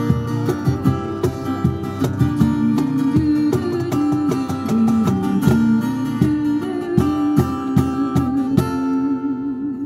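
Live acoustic guitar, strummed steadily through a small PA, with a woman singing over it. The strumming stops just before the end while a last sung note is held, wavering.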